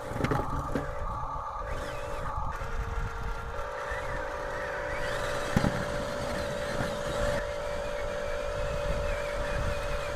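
Small electric motor and gearbox of a radio-controlled toy construction vehicle whining steadily over a low rumbling rattle, the whine steadying at a higher pitch about a third of the way in.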